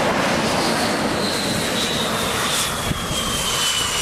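Twin jet engines of an F/A-18F Super Hornet running loud as the jet rolls across the deck, a high turbine whine sliding steadily down in pitch over the roar.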